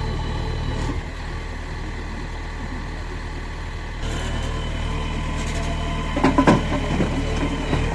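Heavy diesel engine running steadily, with a short burst of loud clattering knocks about six seconds in, like stones dropped into a steel trolley.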